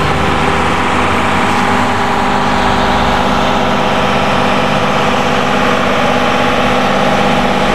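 Fire appliance engine running steadily at a constant speed, a continuous hum with no change in pitch, while it drives the pump feeding the hose jets.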